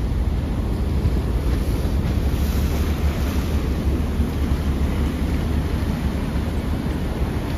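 Large passenger ferry passing close by through broken sea ice: a steady deep rumble from the ship, with wind buffeting the microphone.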